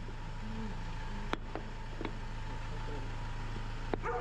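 Steady low hum with two sharp clicks, about a second and a half in and near the end, as a worn steering tie rod with its ball joint is handled.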